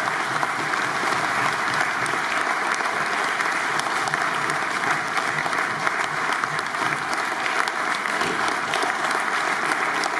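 Audience applauding steadily in a sustained ovation, dense clapping at an even level.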